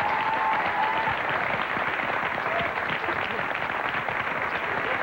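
Studio audience applauding, a dense steady clatter of many hands clapping. A thin high tone sounds over it and stops about a second in.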